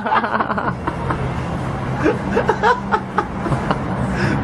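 Quiet snickering and chuckling from people watching, over a steady low hum.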